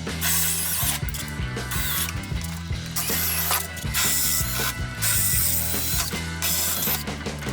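Hand ratchet wrench clicking in repeated strokes as fasteners are backed out to take off a snowmobile's lower belly pan.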